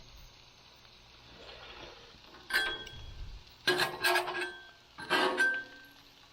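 Metal spatula clinking and scraping on the steel griddle top in three short bursts: one about two and a half seconds in, a longer one near the middle, and one about five seconds in. Each burst leaves a brief metallic ring.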